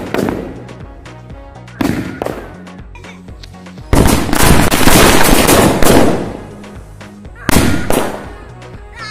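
Firecracker blasts over background music: a burst right at the start, another at about two seconds, a loud dense run of bangs lasting about two seconds from about four seconds in, and one more near the end.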